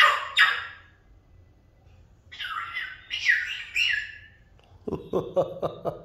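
African grey parrot calling. Harsh squawks at the start give way to a few calls that each fall in pitch. Near the end comes a quick run of short clipped 'ah-ah-ah' sounds, like a laugh.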